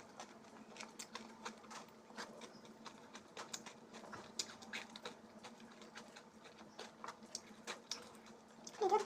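Close-up eating sounds: a run of small wet clicks and smacks of chewing and the mouth opening and closing. Right at the end a cat starts meowing loudly.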